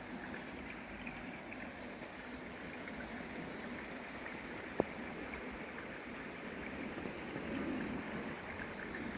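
Steady running water from a small waterfall trickling into a pond, with one sharp click about halfway through.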